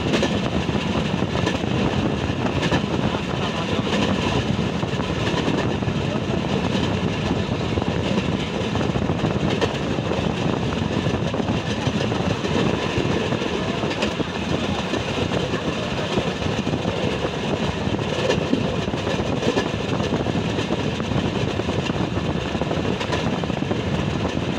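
Rail vehicle running steadily along the track: a continuous rumble of wheels on rails mixed with engine drone, with no breaks or changes.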